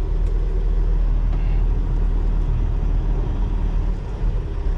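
Semi truck's diesel engine running at low speed, a steady low rumble heard from inside the cab.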